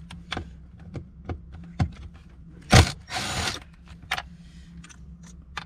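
Scattered clicks and rattles of a cordless impact driver and metal dashboard parts being handled, with a sharp knock about three seconds in followed by a brief half-second burst of noise.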